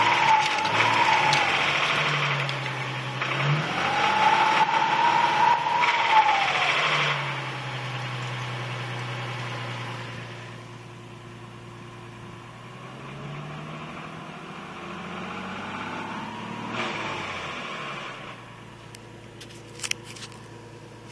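Nissan 350Z's V6 engine blipped up and back down three times, settling to a steady idle between blips. Each rev brings a loud rattle and grinding that the owner traces to the transmission; the car still runs and shifts normally.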